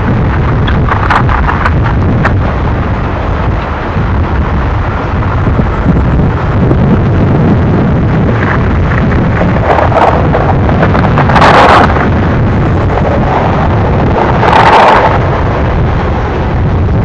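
Freight train of covered hopper cars rolling past: a loud, steady rumble mixed with wind on the microphone. There are a few short clanks about a second in, and two brief, louder bursts of higher-pitched noise, one around ten to twelve seconds in and one about fifteen seconds in.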